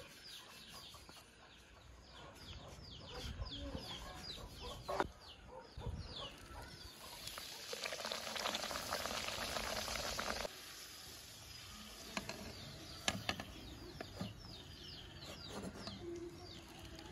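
Small birds chirping over and over in short falling notes, with chickens clucking. For about three seconds in the middle a hiss like food sizzling in a pan comes up and then cuts off suddenly.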